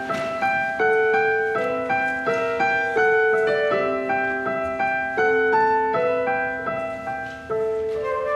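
Piano playing slow, gentle instrumental music: notes and chords struck one after another and left to ring and fade.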